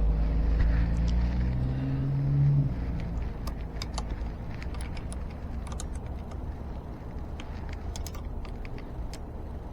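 A motor vehicle's engine runs with a low, steady hum and stops abruptly about three seconds in. After that a low rumble remains, with scattered light clicks of small parts being handled.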